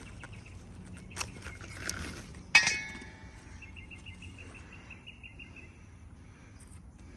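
A single sharp metallic clink with a brief ringing, about two and a half seconds in, after a couple of fainter clicks, during squash picking in the garden.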